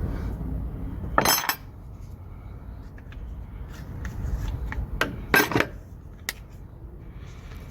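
Metal tools and small engine parts clinking as they are handled: a sharp clink about a second in, then a few more around five to six seconds in.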